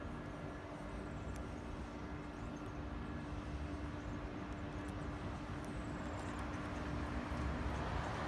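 Steady low background rumble with a faint steady hum, a few faint light clicks, and a slight rise in level near the end.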